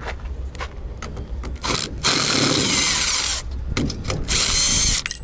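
Cordless impact driver running in two bursts, the first about a second and a half, the second under a second, backing out screws that hold rubber strips on a trailer ramp door. A few light clicks of handling come before the first burst.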